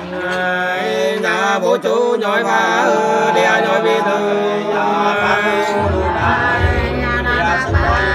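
Unaccompanied hát sli, the Nùng people's call-and-response folk love song, sung in a slow, drawn-out, chant-like melody. A low steady hum comes in about five seconds in.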